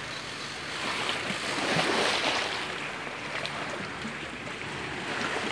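Shallow seawater washing and lapping: a steady rushing noise that swells and eases, loudest about two seconds in.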